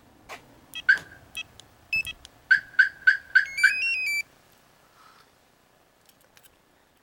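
Aftermarket car alarm system sounding its lock confirmation: a click, a few short electronic chirps, a quick run of five beeps, then a short stepped run of tones.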